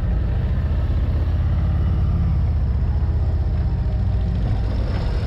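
2024 Harley-Davidson Road Glide's Milwaukee-Eight V-twin engine running steadily.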